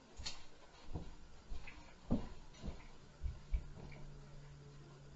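Irregular dull thuds and knocks of footsteps and stomping in the apartment upstairs, heard through the ceiling, about seven in a few seconds with the loudest about two seconds in. A low steady hum comes in about three seconds in.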